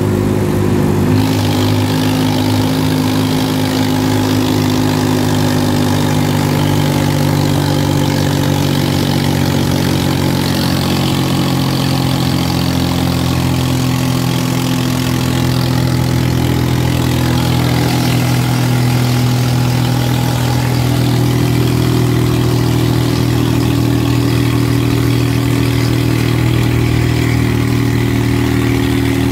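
Swaraj 855 tractor's three-cylinder diesel engine running steadily at an even speed while the tractor is driven along the road, with road and wind noise over it.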